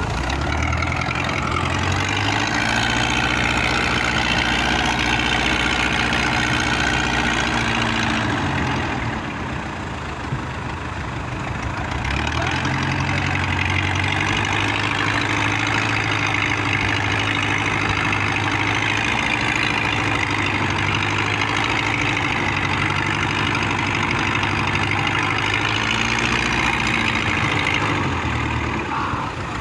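Wooden fishing boat's inboard engine running steadily under way. It eases off about eight seconds in, picks up again about four seconds later, and eases off once more near the end.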